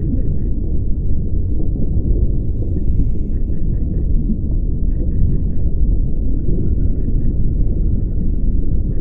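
Underwater ambience on a scuba dive: a steady low rumble with faint clusters of quick clicks every second or two.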